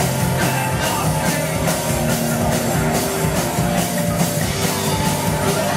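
A rock band playing live: electric guitars over a steady drum beat, heard from within the audience.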